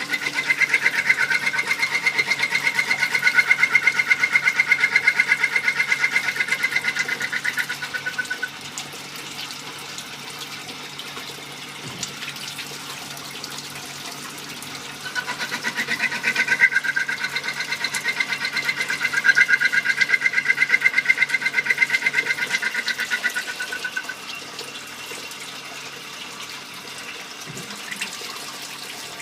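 Compound automatic lathe turning small-diameter precision parts: two cutting cycles of about eight seconds each, each a high pulsing whine, with quieter steady machine noise between and after them.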